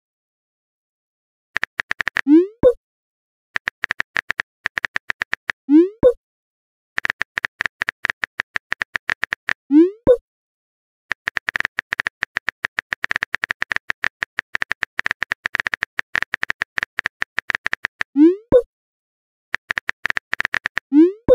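Texting-app sound effects: rapid runs of phone-keyboard typing clicks, each run ending in a short rising 'bloop' message-sent sound as a new chat bubble appears. This happens about five times, with short silent gaps between runs and the longest run of typing near the end.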